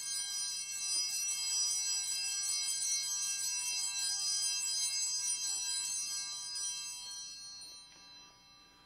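Altar bells, a cluster of small bells shaken, ringing with a bright, high jangle for about seven seconds and then fading away near the end. The ringing marks the elevation of the host just consecrated at Mass.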